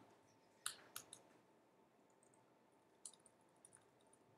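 Faint, scattered laptop keyboard keystrokes: a few isolated key clicks, two close together about a second in and a few more near the end, over near-silent room tone.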